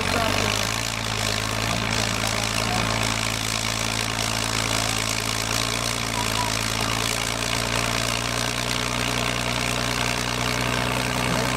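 Fiat 130-90 tractor's six-cylinder diesel engine running steadily under load as it drags a block-laden pulling trailer.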